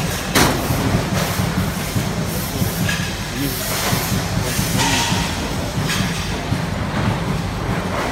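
Steady machinery din of a metal furniture factory floor, a constant noise over a low hum. A sharp knock comes about half a second in, and a couple of brief hissing swishes come around the middle.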